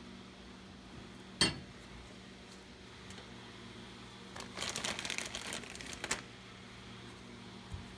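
A single sharp click about a second and a half in, then about a second and a half of plastic bag crinkling as the bag is grabbed and handled, over a faint steady low hum.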